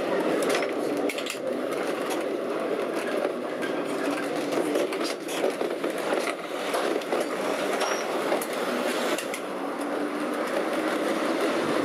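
Lisbon electric tram running along street rails, heard from inside the car: a steady noise of wheels and motor with scattered clicks and rattles.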